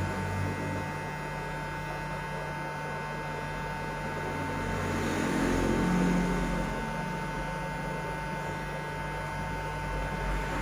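Steady electrical mains hum with a constant high whine, swelling briefly about five to six seconds in.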